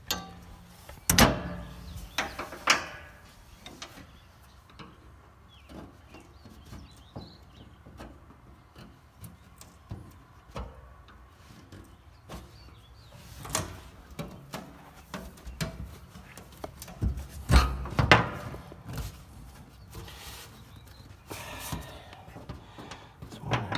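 Scattered clanks and knocks of hand tools against a steel tank top. Two come about a second and two and a half seconds in, a few are spread through the middle, and the loudest cluster comes about three-quarters of the way through.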